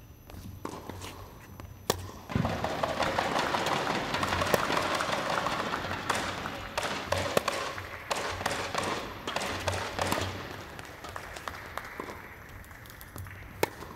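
A few tennis ball strikes and footsteps on the court, then from about two seconds in the spectators applaud for about ten seconds, the applause fading out near the end.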